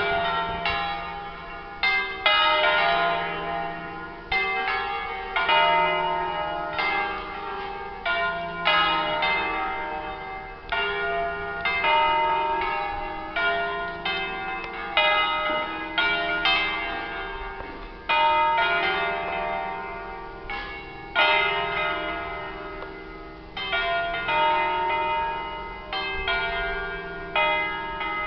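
A ring of five church bells in E-flat, cast by Michele Comerio in 1841, swinging in a full peal. Strikes come roughly once a second in an uneven, overlapping pattern, and each bell rings on after it is struck.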